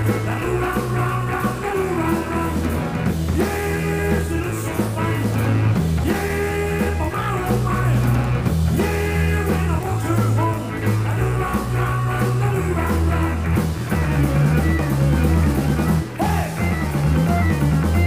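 Accordions playing an up-tempo tune together, sustained chords over a bass line that changes every second or two.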